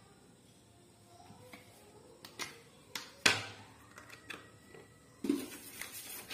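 A few light knocks and clicks of kitchen things being handled on a stone counter, the loudest about three seconds in with a short ring after it. A softer thump and rustle comes near the end.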